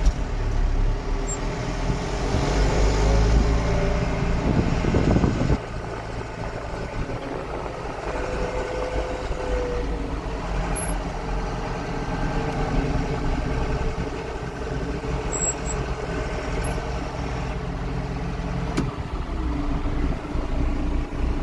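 Farm machinery engine running steadily, louder with a heavy low rumble for the first five seconds or so, then dropping abruptly to a quieter, even running.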